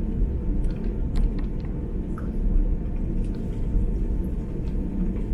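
Steady low rumble inside the cabin of an Airbus A330-300 with Pratt & Whitney PW4000 engines, with a faint steady hum and a few light clicks over it.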